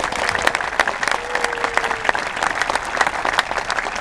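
Stadium crowd applauding: many hands clapping in a dense, steady patter.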